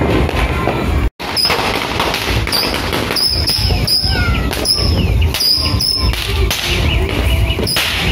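Saturn missile firework battery firing: a rapid, continuous stream of small missiles going off with high whistles and many sharp pops. The sound cuts out for a moment about a second in.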